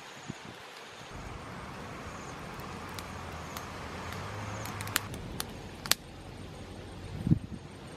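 Wood campfire burning with a steady hiss and a few sharp pops, over a faint low hum. A short dull thump comes near the end.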